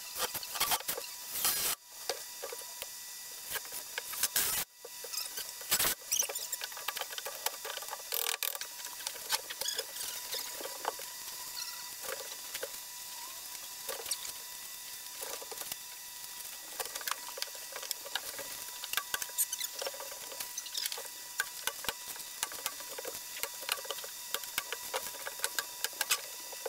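Crinkling and rustling of kraft-paper-faced fiberglass insulation batts as they are unrolled and pressed in between floor joists, with many small clicks and taps throughout.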